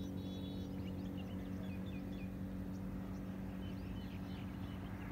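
A vehicle engine running with a steady low hum, while small birds chirp again and again over it.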